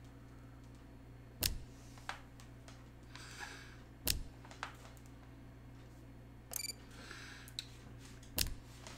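Sharp clicks from handheld VR motion controllers, three loud ones with a few fainter ones between, over a steady low electrical hum. A short high beep sounds about two-thirds of the way through.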